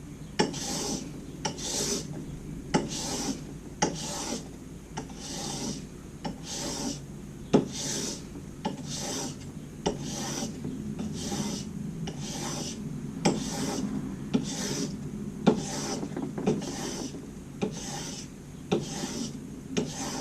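Steel chisel being rubbed back and forth on a sharpening stone to flatten and hone it. The rasping scrape keeps an even rhythm of about two strokes a second, with occasional sharp clicks.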